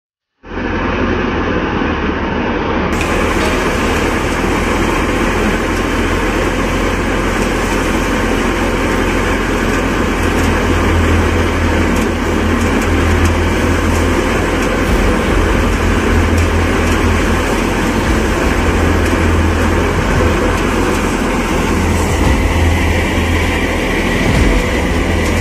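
Paddy thresher running steadily under load: a loud, continuous mechanical drone with a strong low hum under a broad rushing noise of straw and grain going through the machine.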